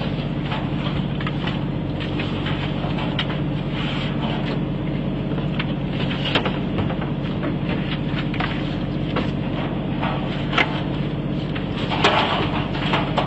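Boat engine running steadily, with crabs knocking and clattering on a stainless steel sorting table. About a second before the end, a net bag of crabs is dumped onto the table, making the loudest clatter.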